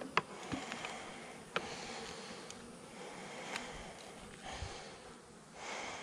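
Honeybees buzzing around an opened hive, with a few sharp clicks from hive frames being handled.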